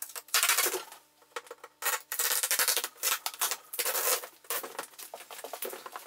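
Adhesive tape being peeled off the edges of a fridge and the cardboard covering being handled, heard as a run of rough ripping, crackling strokes with a short lull about a second in.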